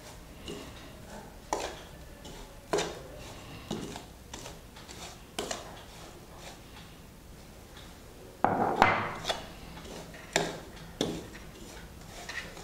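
A metal spoon scraping and knocking on a steel plate as it stirs a thick powdered spice mix wetted with oil, in irregular strokes with a busier flurry about two-thirds through.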